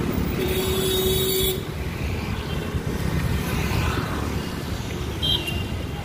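Street traffic running steadily, with a vehicle horn sounding for about a second near the start and a short high-pitched tone about five seconds in.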